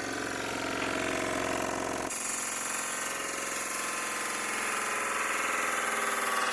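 A State D20 20-inch pedestal disc sander runs on with its power off. About two seconds in, something is pressed against the spinning abrasive disc, and a steady sanding hiss takes over.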